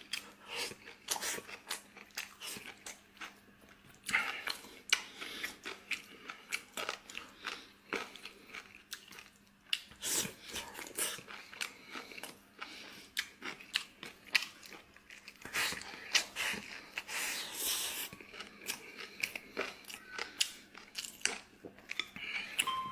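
A person eating close to the microphone: irregular chewing and biting sounds with small crunches, coming in bursts with short pauses, as he works through tomato-braised pork ribs and rice.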